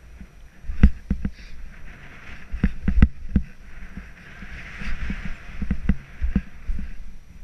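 Snow hissing and swishing under a rider's turns through deep powder, with the hiss swelling about two-thirds of the way in. Frequent sharp knocks and thumps run through it as the rider bounces over bumps and moguls.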